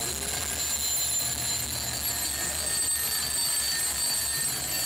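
Mechanical alarm clocks ringing continuously, a steady high-pitched jangle, over the low rumble of a city bus's engine heard from inside the bus.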